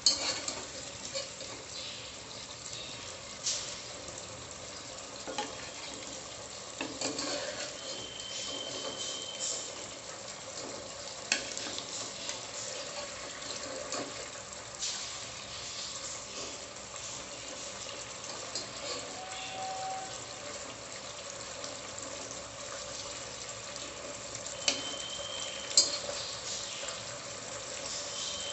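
Braised chicken gravy simmering with a steady sizzle in a pot, while a wire-mesh skimmer lifts the chicken pieces out, knocking and scraping now and then against the pot rim and a plastic plate.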